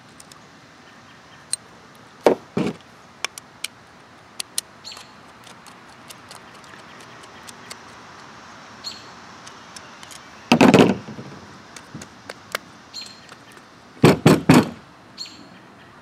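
Clicks and knocks of a screwdriver and a small-engine carburetor being handled on a workbench as the main jet is worked out. Two knocks come a couple of seconds in, a louder thump about ten and a half seconds in, and a quick run of three near the end.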